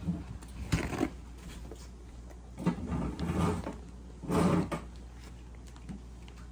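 A few scattered knocks and rustles from handling food at a table as a man leans in to bite a steak taco: one sharp knock near the start and two broader rustling bursts in the middle.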